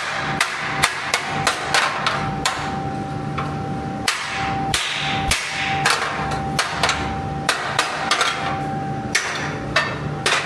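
Hand hammer striking a hot iron anti-roll bar held in a bending jig while one end is forged to shape: a run of irregular, sharp metal blows, about two to three a second, over a steady hum.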